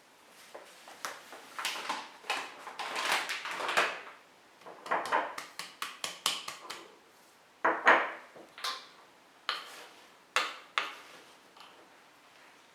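Kitchen handling sounds: dishes and utensils clinking and knocking, with short scraping noises in between, in an irregular run of strikes that is busiest in the first four seconds and again around eight seconds in.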